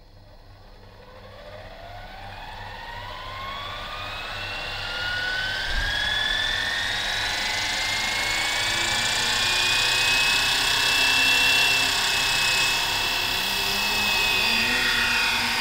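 Electric scale Huey UH-1 RC helicopter spooling up on the ground: its motor and rotor whine rises steadily in pitch and loudness over about ten seconds, then holds steady at flying speed, ready for takeoff.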